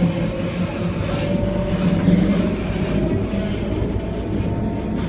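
Tram running, with a steady rumble and a thin electric motor whine that rises slowly in pitch as it gathers speed; a second, higher whine joins near the end.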